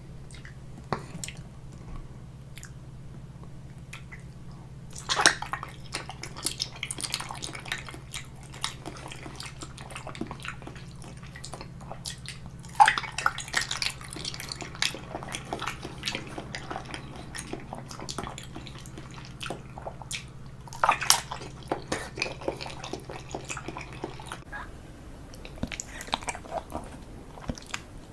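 Close-miked eating: wet, sticky chewing and mouth clicks of sweets, coming in three bursts several seconds apart. A low steady hum runs underneath and stops near the end.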